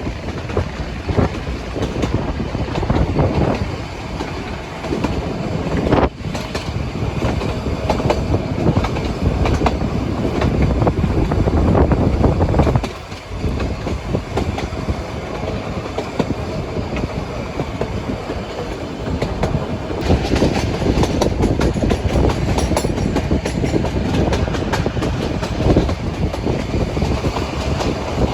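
Nilgiri Mountain Railway toy train running along the track: a steady rumble with the wheels clattering over the rail joints, dipping briefly about thirteen seconds in.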